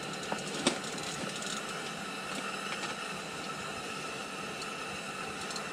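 Portable propane radiant heater burning with a steady hiss. Two light clicks come in the first second.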